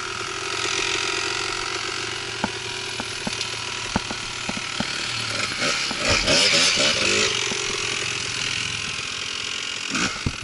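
Yamaha TT-R125 dirt bike's single-cylinder four-stroke engine running, with a series of sharp knocks as the bike rides over bumps. About six seconds in, the engine revs hard for a second or two over a rush of noise. The steady engine note cuts out near nine seconds, and a couple of heavy knocks follow near the end.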